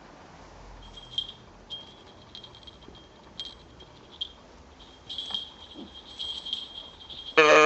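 Faint clicks from a cow soft toy being handled, with a thin high tone coming and going, then near the end the toy's voice box gives one loud electronic moo.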